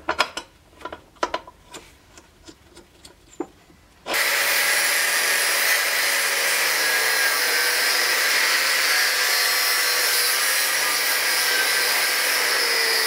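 A few light clicks and taps from a marker and a steel block being handled. About four seconds in, an angle grinder starts suddenly, its disc cutting steadily into a forged steel pommel block clamped in a vise, a loud, even, high-pitched grinding noise.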